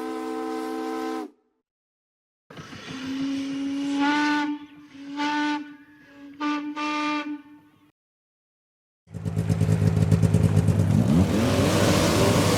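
A string of separate vehicle sounds. First a steady chord whistle cuts off about a second in. After a pause, a steam whistle blows several blasts over hissing steam. After another pause comes a loud rushing rumble with a rising tone near the end.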